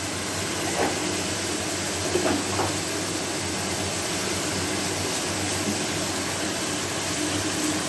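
Steady rushing kitchen noise with a low hum under it, and a few faint clicks about one and two seconds in.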